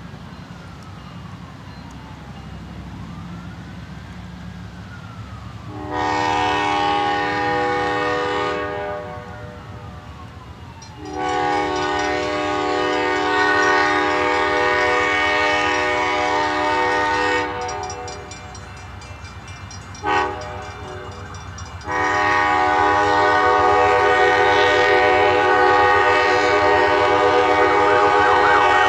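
Amtrak GE P42DC locomotive's multi-chime air horn sounding the grade-crossing signal as the train approaches: long, long, short, long, with the last blast held. A siren wails faintly before the first blast and switches to a fast yelp near the end.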